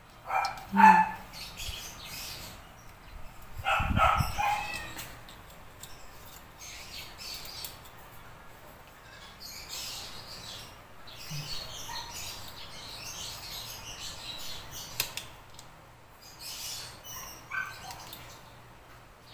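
Hands handling a metal scissor-arm microphone stand and fitting a phone into its clamp: scattered clicks, taps and rustling, with a low thump about four seconds in. A few short animal calls sound about a second in, around four seconds in and near the end.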